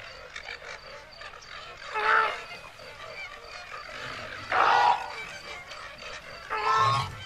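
Flamingos giving three short, pitched honking calls about two seconds apart, over a steady background hiss.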